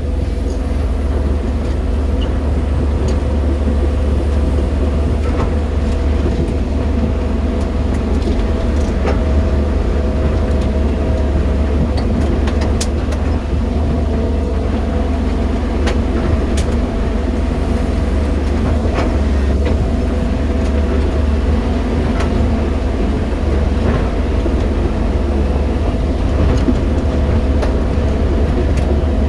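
JCB 215 tracked excavator's diesel engine running steadily under load as the machine is driven slowly, a deep low hum with a steady whine above it and a few scattered clicks and knocks.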